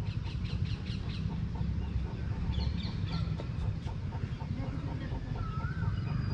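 Birds chirping in trees, with a short warbling call near the end, over the steady low rumble of wind and handling on a body-worn action camera's microphone and a faint regular clicking.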